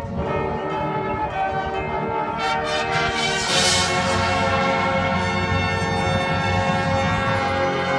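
High school marching band playing held chords from the brass with bell-like tones, a bright swell of high sound rising about three and a half seconds in.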